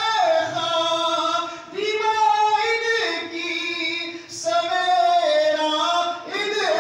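A man singing a manqabat (Urdu devotional praise poem) solo and unaccompanied, held long wavering notes in a high voice, phrase after phrase with short breaths between.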